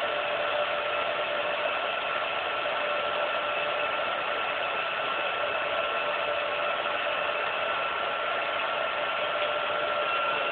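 16mm film projector running: a steady mechanical whir with a few held hum tones.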